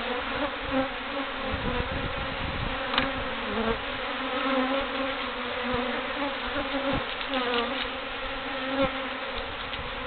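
Feral honey bees buzzing in numbers, stirred up by their hive being cut open: a steady, wavering hum of many wings, with a few light clicks.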